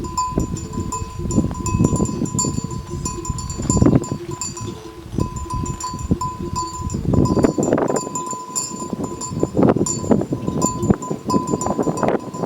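Bells on grazing water buffalo clanking and ringing irregularly, over the low rustle and thudding of the animals.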